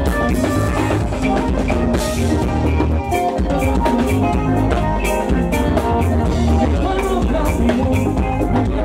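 Live band music with a drum kit keeping a steady beat under held instrument notes.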